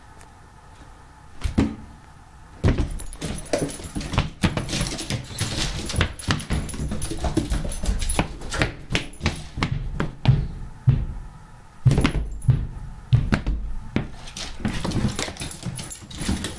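A dog's claws clicking and scrabbling on a hardwood floor and pawing at a door, with the metal tags on its collar jingling and some knocks. It is a dense run of rapid clicks and rattles starting about three seconds in.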